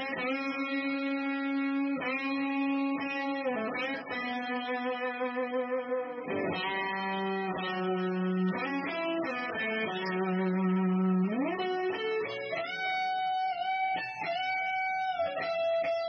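Crews Maniac Sound ST54 Stratocaster-style electric guitar with Y.O.S Smoggy pickups, played as a sustained single-note melody through a Dawner Prince Boonar, a Binson Echorec-style multi-head echo pedal. One note is bent upward about two-thirds of the way through.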